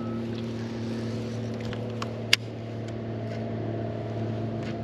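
Boat motor running with a steady hum, and one sharp click a little over two seconds in.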